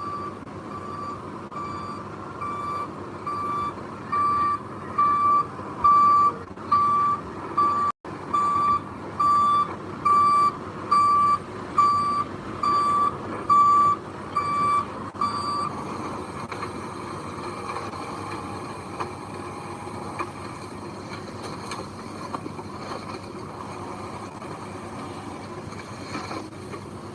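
Back-up alarm on a heavy machine beeping steadily, just under two beeps a second, swelling louder and then fading before it stops about two-thirds of the way through, over the steady running of a diesel engine.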